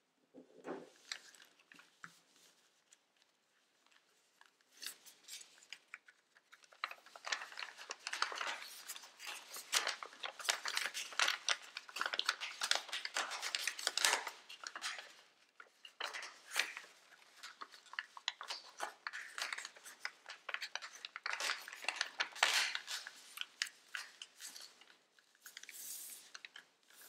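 Regular origami paper being folded and creased by hand: crisp crackling and rustling of the sheet, sparse for the first several seconds, then nearly continuous.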